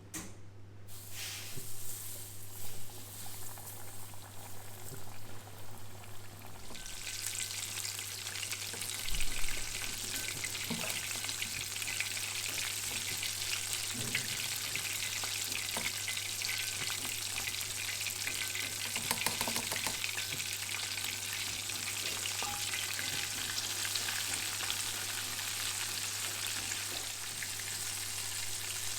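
Flour-dredged chicken pieces deep-frying in hot oil, sizzling. The sizzle is patchy at first, then turns loud and dense about seven seconds in. There is a sharp knock about nine seconds in.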